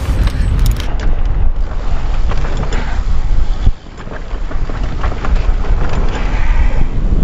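Wind buffeting the microphone and the rattle and crunch of a downhill mountain bike riding a rough dirt trail at speed, with many small knocks from the bike over the terrain. The noise drops out sharply for a moment a little past halfway, then picks up again.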